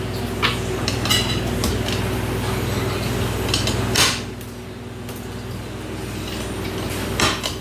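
Kitchen knife cutting cucumber on a cutting board: a few scattered sharp taps and clicks, with a steady low hum underneath.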